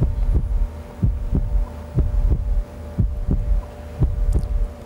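Quiz-show answer-countdown sound effect: a low double thump once a second, marking off the seconds, over a steady hum.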